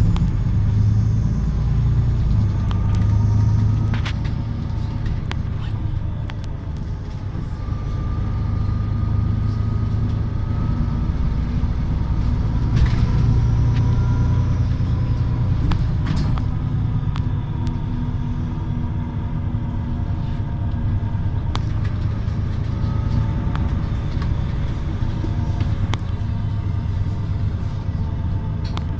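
Cabin noise inside a Solaris Urbino 12 city bus on the move: a steady low engine and road rumble, with a faint whine that drifts up and down in pitch and occasional short clicks and rattles.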